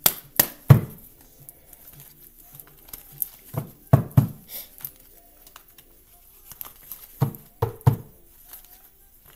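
A deck of tarot cards being shuffled by hand: papery rustling broken by sharp card knocks that come in three quick clusters, a few seconds apart.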